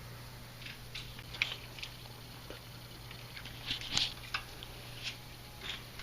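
Faint, scattered clicks and light taps of hand tools and brake parts being handled, the clearest about four seconds in, over a steady low hum.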